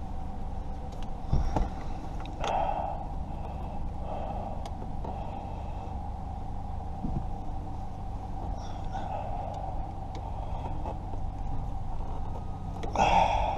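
A person breathing hard close to the microphone, with a few heavy exhales, over a steady low hum. A couple of faint clicks of hand work sound about 1.5 and 7 seconds in.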